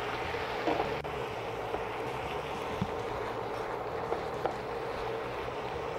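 Sliced chicken and mushrooms simmering in cream in a wok, a steady hiss, with a few faint scrapes of a silicone spatula stirring.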